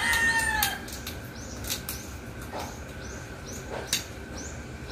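A small sharp hand tool cutting and scraping away a fish's sharp spines and fins, in short rasping strokes about every half second with a few sharp clicks. A rooster's crow trails off in the first half second.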